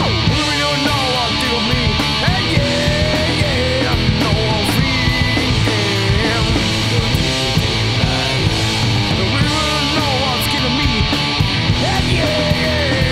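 Hard rock band playing an instrumental passage: a distorted lead electric guitar solo with bent and wavering notes over rhythm guitar, bass guitar and drums.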